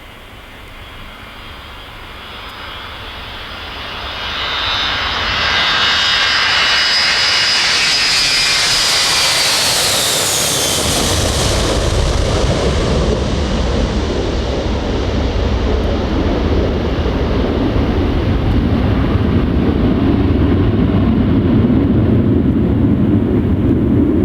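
Boeing 707-320C jet engines at take-off power as the jet rolls past. A high whine and buzz grow louder, then drop in pitch about ten seconds in as it passes, giving way to a deep steady rumble that cuts off suddenly at the end.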